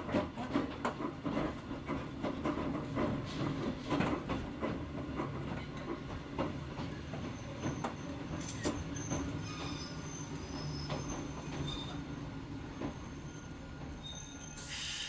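Hakone Tozan Railway Moha 1 electric car running, heard from inside the car: the low hum of its nose-suspended traction motors, with wheels clicking over rail joints in the first half and a faint high wheel squeal setting in about halfway.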